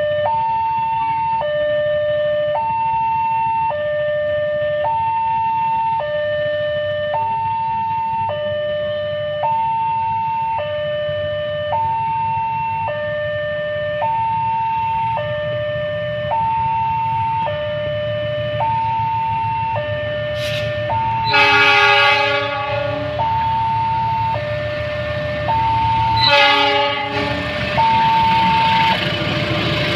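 An electronic two-tone warning alarm sounds steadily, alternating a high and a low note about every 1.4 seconds. An approaching CC 206 diesel locomotive sounds its horn twice, a longer blast about 21 seconds in and a short one about 26 seconds in. The rumble of the train grows toward the end.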